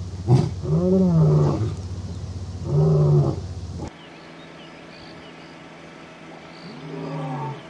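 Male African lion roaring: a run of short, deep, throaty calls, three of them in the first four seconds, the closing series of a roar bout. One more lower-level call of the same kind comes near the end.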